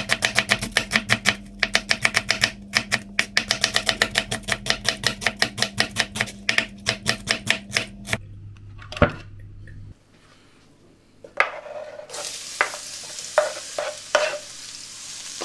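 Chef's knife slicing a red onion on a bamboo cutting board: rapid, even chopping strokes, about six a second, for the first eight seconds. After a short lull, the sliced onions go into hot oil in a frying pan and begin to sizzle, with a few clicks of a spatula stirring them.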